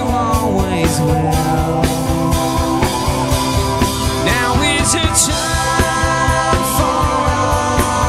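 Live rock band playing a song: electric and acoustic guitars and drums, with a male lead vocal singing.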